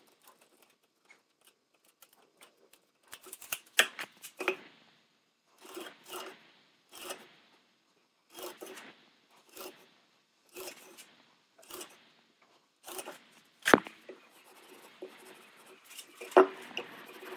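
Short scraping or cutting strokes, roughly one a second with uneven gaps, with a few sharp clicks among them; the sharpest is about three-quarters of the way in.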